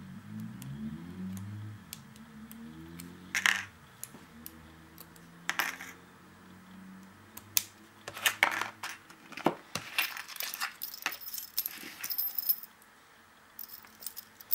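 A small brass Corbin padlock and homemade metal picks clicking and clinking as they are handled and laid on a table. Two single sharp clicks come in the first half. A busy run of bright metallic clinks and rattles follows in the second half.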